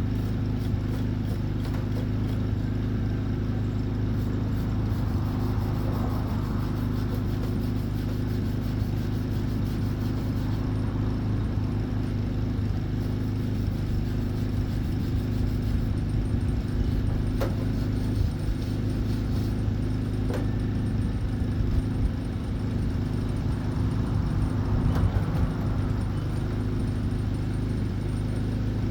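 Flux-core wire welder running with a loud, steady electrical hum and light crackling, plus a few sharp pops, while welding a copper and 1095 steel billet.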